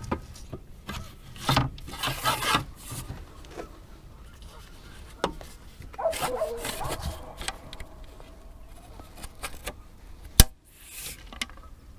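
Rubbing and scraping handling noises as a landing net and tackle are handled on a fishing boat, with one sharp, loud click about ten seconds in.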